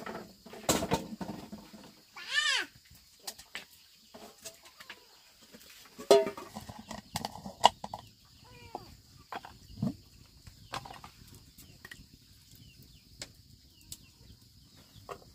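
Handling noises of a glass jar with a plastic lid and a metal pot: scattered knocks and clicks, with a loud clatter about six seconds in. A short animal call that rises and falls in pitch comes about two and a half seconds in, and fainter calls follow later.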